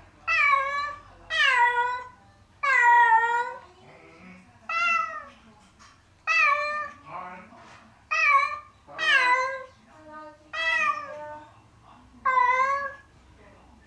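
A domestic cat meowing over and over, about nine loud, drawn-out meows at a steady pace of roughly one every second and a half. It is calling while left alone, which its owners suspect is separation anxiety.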